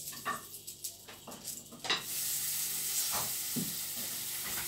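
Sausage sizzling as it grills in a hot pan, with a few light clicks and knocks before a steady sizzle sets in about two seconds in.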